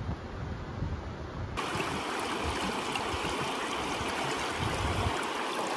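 Wind buffeting the microphone for about the first second and a half, then a sudden cut to the steady rushing of river water.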